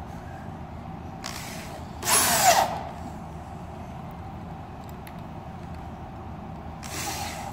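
Bosch drill driving a wood screw into the wooden roof board: a short faint whir, then a louder run of about half a second starting around two seconds in, and another run beginning near the end.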